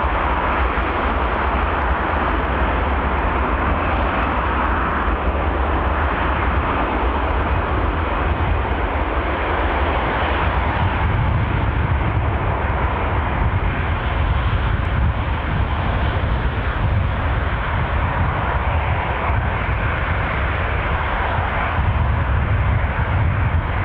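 Jet engines of a Fokker twin-jet, mounted at the rear, running loudly and steadily as the plane rolls away down the runway. A deep rumble strengthens about ten seconds in.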